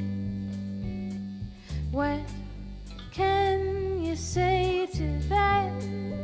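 Live roots-rock band playing, with a woman singing lead phrases from about two seconds in over guitar, bass and drums with cymbals.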